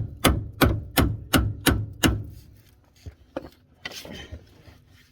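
A hammer striking metal in a fast, even series of sharp blows, about three a second, seven in all, stopping about two seconds in. A few lighter knocks and a short scraping rustle follow near the four-second mark.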